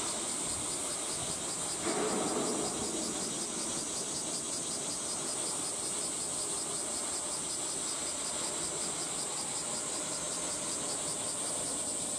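Cicadas droning steadily with a fast, even pulsing, over a faint low rumble. About two seconds in, a short burst of louder noise starts sharply and fades within a second.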